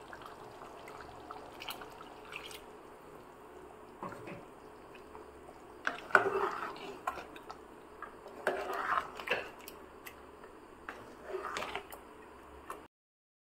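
Steel ladle stirring thick chicken gravy in an aluminium pot: wet slopping in three short bouts, with a few clinks of the ladle against the pot.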